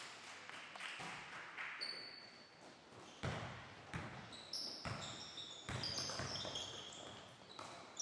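A basketball being dribbled on a hardwood court, about one bounce a second from about three seconds in, each bounce echoing in the gym. Sneakers give short high squeaks on the floor.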